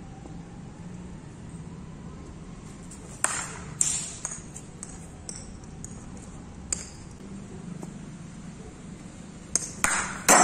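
Sharp clacks of a cricket ball striking the bat and bouncing on hard concrete: two about a second and a half apart early on, a single light one midway, and a quick cluster near the end, the last the loudest.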